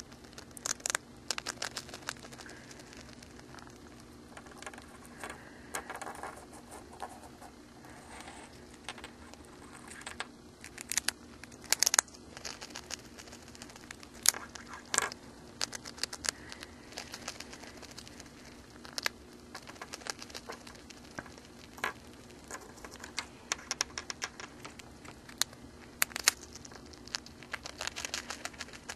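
Hamster gnawing on a Cheez-It cheese cracker: irregular sharp crunches and small clicks as it bites off pieces, some coming in quick clusters.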